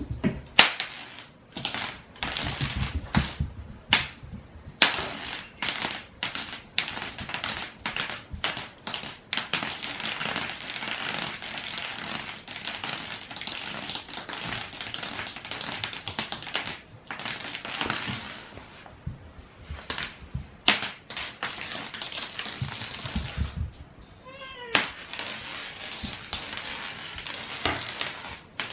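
A cat playing: irregular clicking, tapping and scratching with rustling in between, and a short wavering call about three-quarters of the way through.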